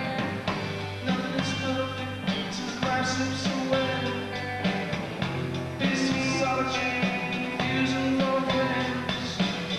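Live rock band playing with electric guitar, bass and drums keeping a steady beat.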